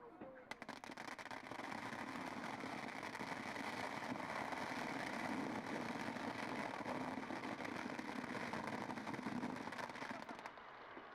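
Many firecrackers going off together in a rapid, unbroken crackle. It builds up about half a second in and thins out near the end.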